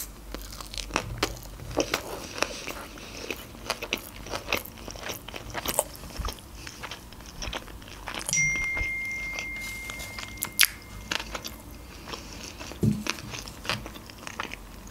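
Close-up mouth sounds of a person chewing a sushi roll: wet bites and chewing clicks. A thin steady high tone sounds for about three seconds midway.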